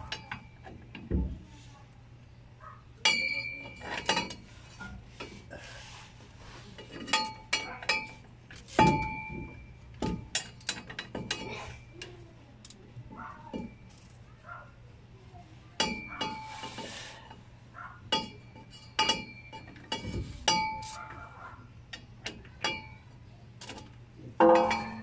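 Metal hand tools clinking and knocking against metal parts under the van. The clinks are sharp and irregular, some in quick clusters, and each rings briefly.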